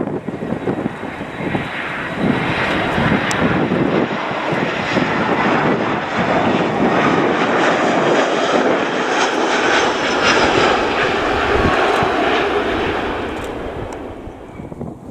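Jet engines of an Airbus A320-family airliner on approach and landing, a loud steady rush that swells about two seconds in and fades away near the end.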